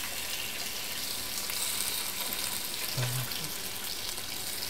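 Bacon strips frying in a pan, sizzling steadily, with a short low hum about three seconds in.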